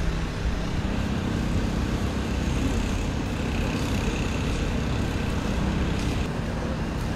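Steady low engine hum, like idling vehicles, over outdoor street noise.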